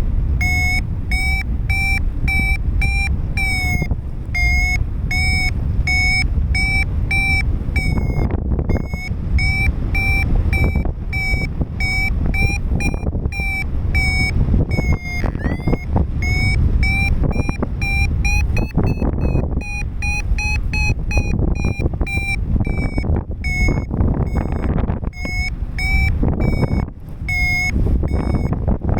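Paragliding variometer giving its climb tone: a rapid train of short electronic beeps whose pitch shifts slightly up and down, highest about two-thirds of the way through, signalling that the glider is climbing in lift. Wind rushes over the microphone underneath.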